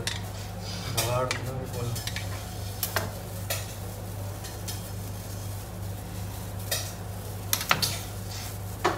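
Spatula spreading and scraping whipped cream over a layered sponge cake, with a few sharp clicks and taps of utensils. A steady low hum runs underneath.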